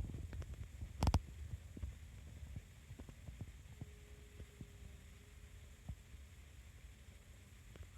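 Low rumble of handling and wind on a phone's microphone, with scattered small clicks and one sharp knock about a second in; a faint steady tone is heard for about two seconds midway.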